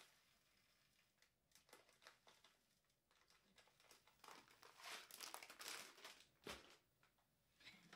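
Mostly near silence, then faint crinkling of a rice packet a few times between about five and six and a half seconds in, as rice is poured into the Thermomix steaming basket.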